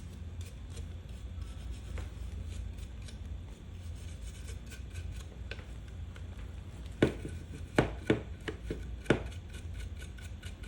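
Hands handling a plastic hair dryer and its filter cover to clear out dust: faint rubbing and light ticks, then a handful of sharp taps and knocks about two thirds of the way through, over a low steady hum.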